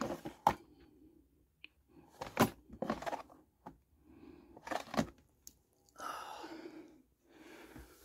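Clear plastic storage drawer being handled and pulled open: several sharp plastic clicks and knocks, then about a second of sliding, rustling noise a little after six seconds in.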